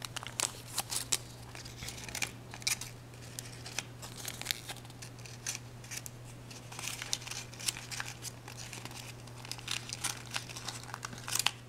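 Aluminium foil paper crinkling and crackling under the fingers as it is folded and pressed, a quick irregular run of small sharp crackles.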